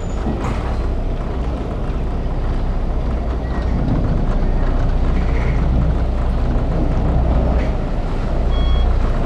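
CityCat catamaran ferry's engines running with a steady low drone and water churning as it comes in to the pontoon. A short high beep near the end.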